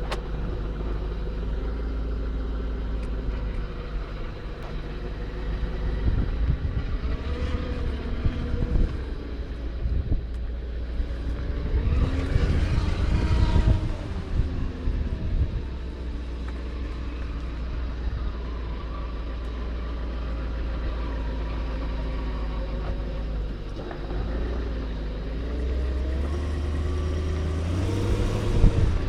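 BMW E34 running with a whine heard over the low engine hum. The whining pitch rises and falls a few times, at about 8, 13 and 28 seconds in, as the engine note swells.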